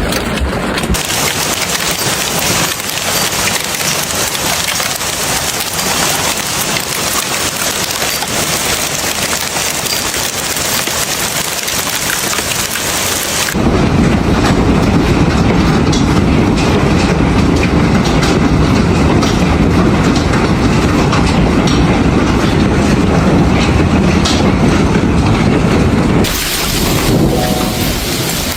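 Hailstones pelting a car's windshield and body, heard from inside the car as a dense, continuous rattle of hits. About halfway through, the sound abruptly turns duller and heavier for about twelve seconds, then goes back to the brighter rattle.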